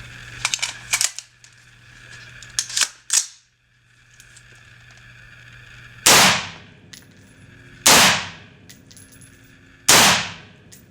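AR-15 rifle fired in semi-automatic mode: three loud single shots about two seconds apart, each echoing away, after a few shorter, quieter cracks early on.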